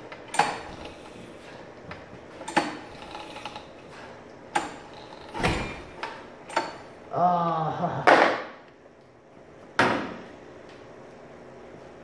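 Small lawnmower engine pull-started by its recoil starter rope: several quick pulls a second or two apart, cranking without ever firing. It won't run because water was drawn into the cylinder.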